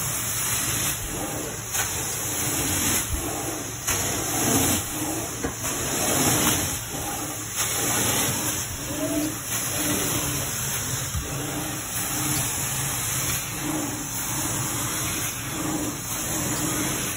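Carpet steam-cleaning extraction wand drawn back and forth over carpet: a steady hiss of spray and vacuum suction that swells and eases about once a second with the strokes.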